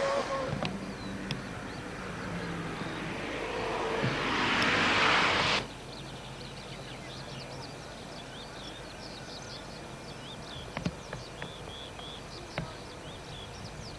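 Narrow-gauge steam locomotive working: a steady rushing noise that grows louder for about five seconds, then breaks off abruptly. After it come birds chirping and a few light clicks.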